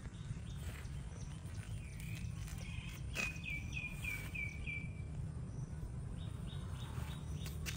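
High, quick chirping calls: a run of about six falling chirps about three seconds in, with scattered single chirps before and after, over a steady low outdoor rumble.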